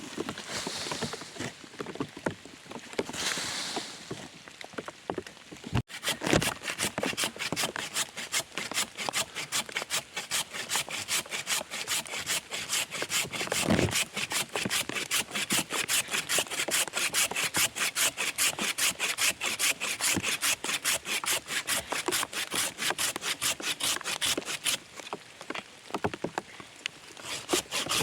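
A hand saw cutting through wood in quick, even back-and-forth strokes, starting abruptly about six seconds in. It pauses briefly near the end, then the sawing resumes. The first seconds hold softer, irregular noise.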